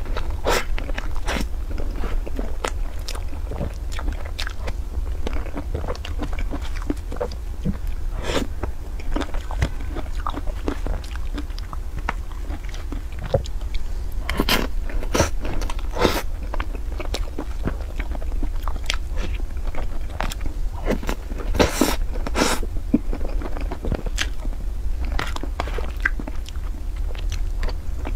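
Close-miked eating of whipped-cream fruit sponge cake: a steady run of small wet chewing clicks and smacks, with a few louder ones now and then, over a low steady hum.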